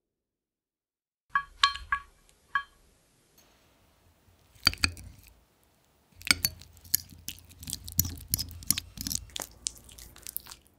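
Metal spoons clinking: four short ringing strikes, starting about a second and a half in. Later comes one sharp crack, then several seconds of dense crisp crackling over soft low thumps.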